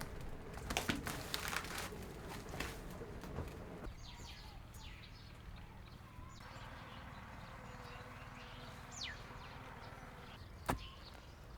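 Scattered knocks and clatter for about four seconds, then birds chirping in the open over a low steady background, with one sharp knock near the end.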